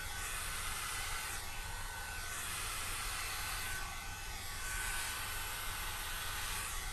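Quo ceramic hot air brush blowing on high, used as a hair dryer to push wet alcohol ink across the paper. A steady rushing whoosh with a thin whine, growing louder and softer as the nozzle is swept back and forth.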